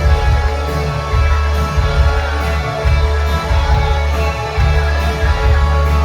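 Live rock band playing: guitar over held, changing bass notes, with cymbal strokes.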